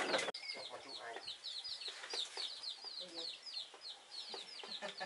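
Chicks peeping: many short, high chirps falling in pitch in quick succession, with a few lower clucks around the middle.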